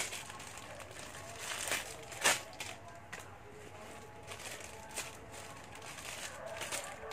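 Thin plastic bag crinkling in the hands in a few short rustles, the loudest about two seconds in.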